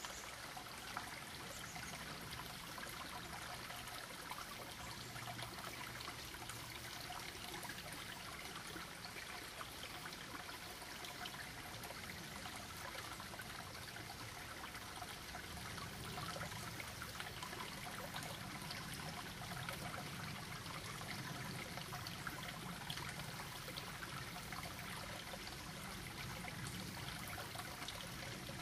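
Shallow creek trickling over stones, a steady, quiet flow of water.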